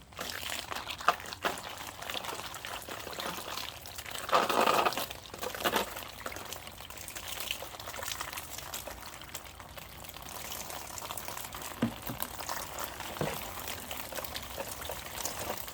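Water from a garden hose spraying and splashing onto a plastic chicken-watering container as it is rinsed down, with a louder gush about four seconds in.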